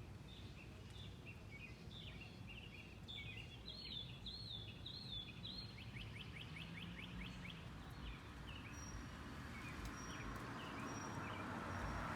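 Birds calling: a run of short repeated chirps for the first several seconds, then a fast trill, and a faint high repeated peep near the end, over steady outdoor background noise.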